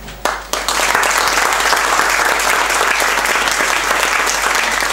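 Audience applauding. The clapping starts about half a second in and holds steady.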